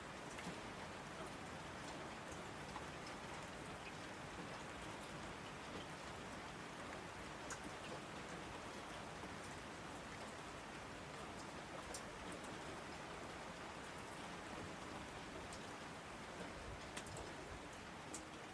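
Faint, steady rain with occasional sharp drop ticks.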